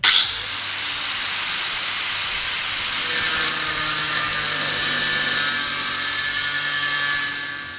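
Angle grinder with a thin cut-off disc starting up suddenly and cutting a notch into a steel shaft: a loud, steady high-pitched whine over a grinding hiss. Near the end it is switched off and winds down.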